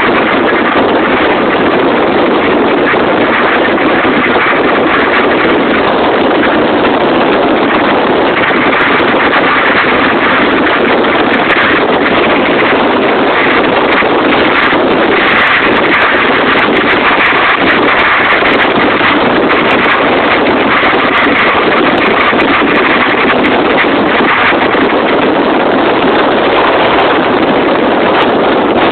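Loud, steady rushing of wind blowing across a phone's microphone, an even roar with no breaks.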